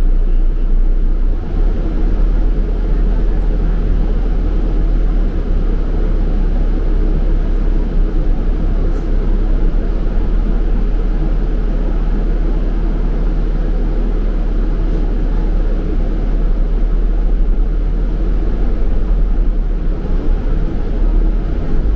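Steady low rumble of a double-decker bus's engine and running gear, heard from inside the bus.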